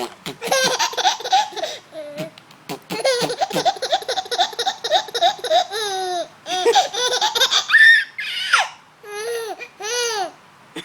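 A young child laughing hard in repeated high-pitched bursts, with a quick run of short laughs at about five a second and a high squeal about eight seconds in.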